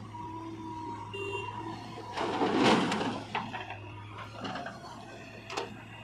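JCB 3DX backhoe loader's diesel engine running steadily with a faint hydraulic whine. About two seconds in, a loud rush of scraping and falling soil lasts about a second as the backhoe bucket works the dirt. A couple of sharp metal clanks from the bucket and boom follow.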